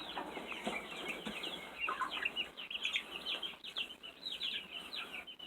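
A brood of three-week-old chicks, light Brahmas and Ameraucanas, peeping continuously with many short, high chirps overlapping.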